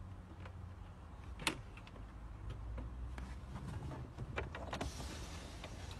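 Low, steady rumble of a car heard from inside its cabin, with one sharp click about a second and a half in and a few softer clicks later on.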